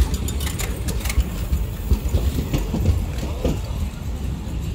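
Utkrisht passenger coaches of an Indian Railways express train rolling past, with a steady low rumble and sharp wheel clicks over the rail joints, bunched in the first second or so.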